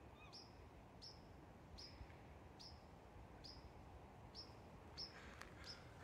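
A small bird calling faintly: a short, high note sliding down, repeated steadily about every three-quarters of a second, some eight times.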